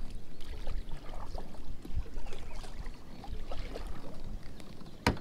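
Kayak paddle strokes in the water, with small splashes and drips. A single sharp knock comes just after five seconds.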